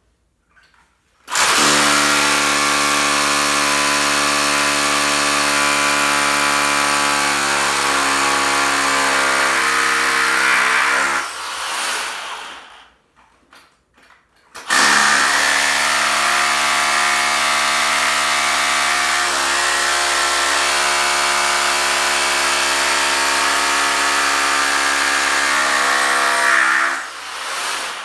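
Milwaukee 2712-20 SDS Plus rotary hammer drilling into concrete in two long runs of about ten seconds each, with a short pause between them.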